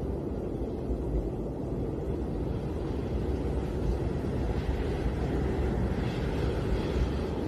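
Snowstorm wind blowing steadily as a deep rumbling noise, with a gust adding a higher hiss from about five to seven seconds in.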